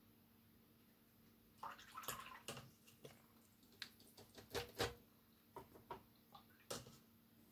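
Watercolour brush being worked in water and paint at the palette: a scatter of soft taps, clicks and small splashy dabs, loudest about two and five seconds in.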